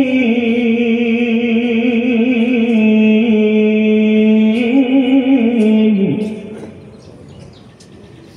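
Male qari reciting the Qur'an in a melodic tilawah style into a microphone, drawing out long notes with wavering ornaments. About six seconds in, the phrase ends on a falling note and the voice stops.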